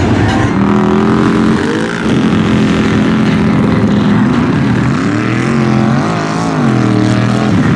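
Off-road vehicle engine revving. The pitch climbs about two seconds in and then holds steady, and near the end it is blipped up and down several times.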